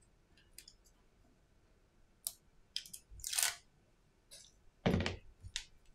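Small plastic handling noises: crinkling and crackling as the adhesive backing film on a replacement iPhone battery is peeled with tweezers, with a longer crinkle about three seconds in. About five seconds in a dull thump, the loudest sound, comes as the battery is set down on the silicone mat, followed by a small click.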